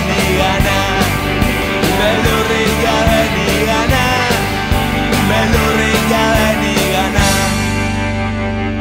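Rock music soundtrack with a steady drum beat. About seven seconds in, the drums stop and a held chord rings on, slowly fading.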